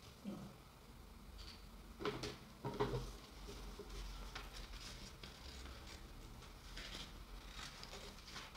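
Quiet handling of a paper sewing pattern: paper rustling and sliding on a cutting mat, with a few short sharp snips and taps, the loudest about two to three seconds in, as the pattern is cut with scissors.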